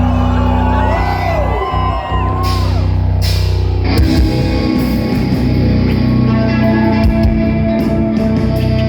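Rock band playing: the song opens with long, bending guitar tones, then the full band comes in about four seconds in with electric guitar and bass.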